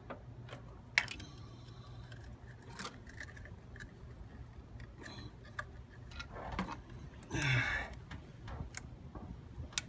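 Scattered small clicks and clinks of parts and tools being handled, over a steady low hum, with a brief louder rustle about seven and a half seconds in.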